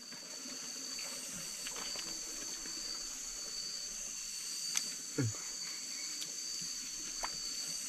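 Night insects chirring in a steady, high-pitched drone, with a few faint clicks and one brief low sound about five seconds in.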